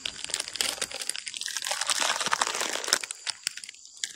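Plastic snack packaging crinkling and rustling as it is handled, with scattered light clicks. It is busiest in the middle and thins out near the end.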